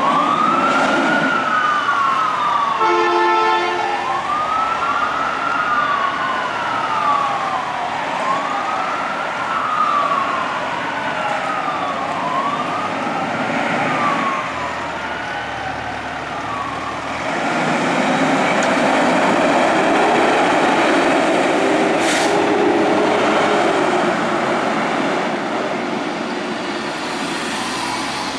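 Fire truck siren wailing, rising and falling about every two and a half seconds, with a short air horn blast about three seconds in. About halfway through the wail gives way to a louder steady rush of engine and road noise as the truck pulls out and drives off.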